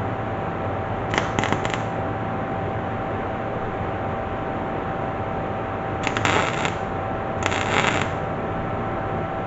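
MIG welder arc crackling in three short bursts, as in tacking sheet metal: a brief broken one about a second in, then two of under a second each about six and seven and a half seconds in, over a steady hum.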